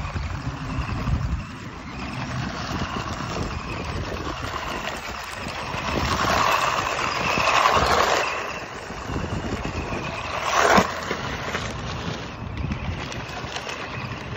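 Remote-control car sliding and spinning its tyres on loose gravel and dirt: a gritty scrabbling hiss that grows loudest about seven to eight seconds in as the car comes close, with a single sharp knock a few seconds later.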